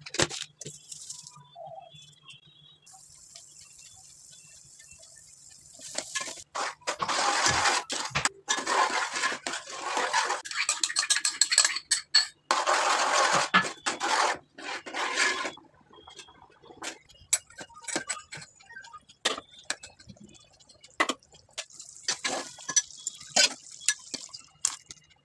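Cooking noise at a steel pot: a metal spoon clinking and scraping against the pot in scattered sharp knocks. About six seconds in, a loud rushing, scraping noise runs for some ten seconds.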